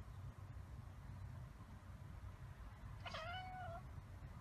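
A tabby cat gives one short, steady meow-like call about three seconds in, over a faint low rumble.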